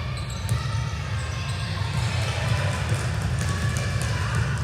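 Gym sound during an indoor court game: scattered ball impacts on the court, distant voices, and a steady low hum, with the echo of a large hall.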